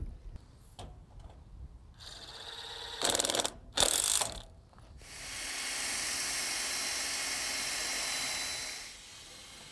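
Cordless impact driver sinking a screw into the steel bulkhead door frame in two short bursts about three to four and a half seconds in, then a cordless drill running steadily for about four seconds as it bores a hole through the steel.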